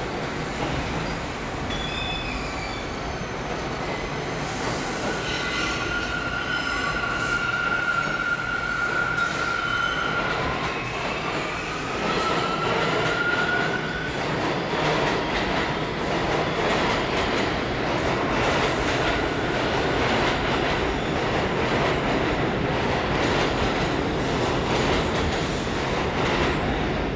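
R68 subway train running along the platform, its wheels squealing on the rails partway through with a tone that glides upward, then a steady clatter of wheels over rail joints. It is heard through a faulty microphone.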